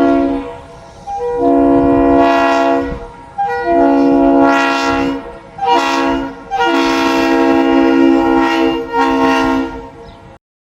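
Locomotive air horn sounding a chord of several notes. The end of one blast is followed by two long blasts, a short one and a final long one: the long-long-short-long grade crossing signal. The sound cuts off suddenly near the end.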